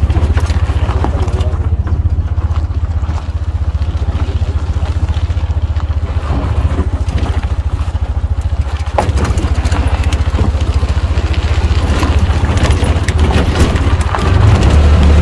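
Car engine pulling in first gear up a rough, bumpy track, heard from inside the cabin as a steady low drone with rattles and knocks from the car jolting over the ruts. It gets louder near the end.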